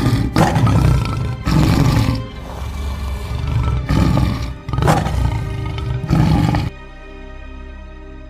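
A big cat roaring in a series of loud bursts over background music. The roars stop about two-thirds of the way in, leaving only the music.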